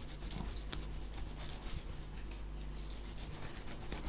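Knife blade scraping and cutting along a sea bream's backbone while filleting, a run of short, irregular scratchy strokes.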